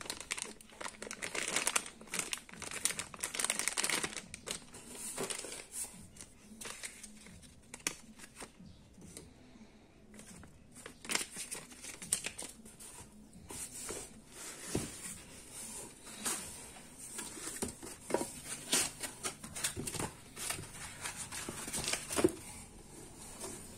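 Plastic bag and packing material crinkling and rustling as they are handled, in irregular bursts with a quieter stretch about nine seconds in.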